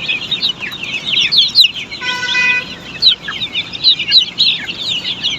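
A crowd of chicks peeping continuously, many short high chirps overlapping, with one brief held call about two seconds in.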